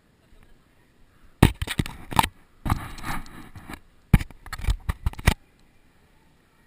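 Airsoft guns firing: three clusters of sharp cracks and short rapid bursts over about four seconds, starting about a second and a half in.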